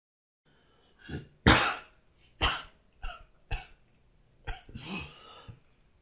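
A man coughing in a fit, about six harsh coughs starting about a second in, the second the loudest, with a longer rough breath near the end. It is an asthmatic coughing attack, which he calls just a mild one.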